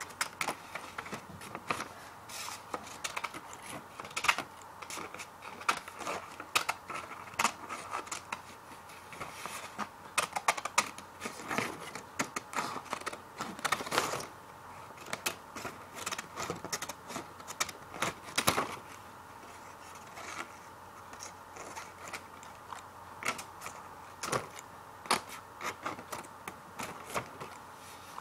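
Scissors cutting paper: a long run of irregular crisp snips, some in quick clusters and some spaced apart.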